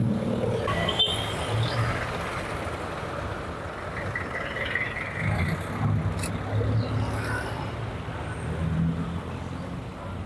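Engine of a moving road vehicle running steadily, with the surrounding street traffic, heard from aboard the vehicle.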